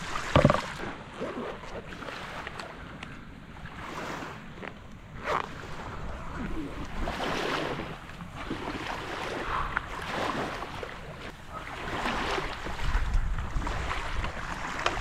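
Camp cooking gear being handled on a cooler lid: a sharp knock about half a second in, then scuffs, rustles and light clunks as a folding propane camp stove is unpacked from its bag. Under it, wind on the microphone and small waves lapping at the shore.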